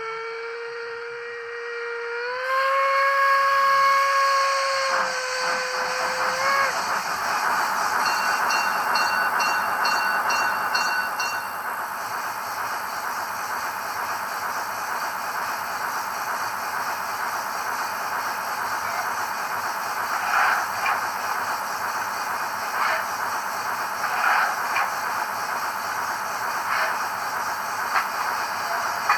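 Zimo sound decoder in a Fleischmann class 77 model steam locomotive playing a recorded steam whistle through its small speaker: one long whistle that steps up slightly in pitch about two seconds in and stops after six or seven seconds. It is followed by a steady steam hiss with a few faint clicks.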